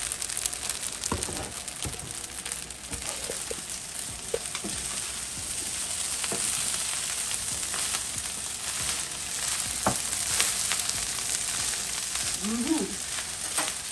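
Rice frying in a skillet with a steady sizzle, stirred and turned with a wooden spatula that knocks and scrapes against the pan now and then.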